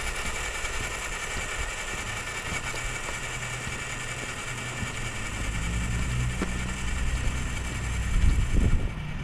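Steady electric-motor and gear whine of a radio-controlled scale crawler truck driving, dying away near the end, with a low rumble that grows louder in the second half.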